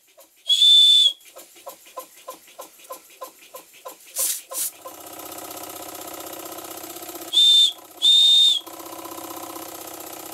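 Small brass boiler whistle on a live-steam model vertical steam engine, blown in three short toots: one about half a second in and two close together about three quarters of the way through. In between, the engine's single-acting cylinder chuffs softly about four times a second, a brief hiss of steam comes about four seconds in, and then the engine runs on with a steady sound.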